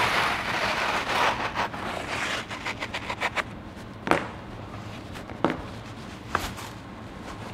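Fiber glass duct board cutsaw tool drawn along the board, its blade scraping steadily through the fiber glass insulation for about two and a half seconds. After that come quieter scattered scrapes and three short sharp sounds.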